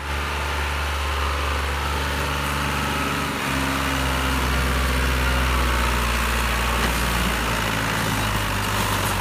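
Tractor diesel engine labouring under heavy load, hauling a trolley piled with stones, its front wheels lifting and black smoke coming from the exhaust. The engine runs steadily, and its note drops slightly about three and a half seconds in.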